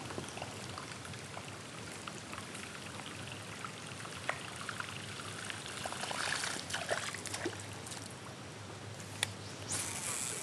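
River water trickling and lapping, with scattered light clicks and small splashes that bunch together about six to seven seconds in and again just before the end.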